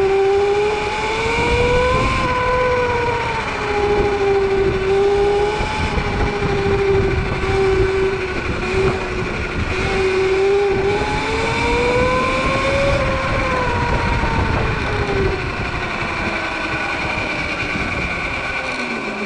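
Sur-Ron electric dirt bike's motor whining as it rides, the pitch rising and falling with speed, rising to a peak twice and dropping lower near the end, over a steady rushing noise.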